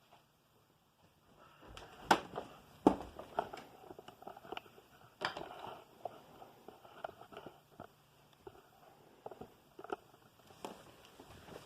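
Scattered knocks, clicks and rustling of a vacuum cleaner being handled, with no motor running; two sharp knocks about two and three seconds in are the loudest.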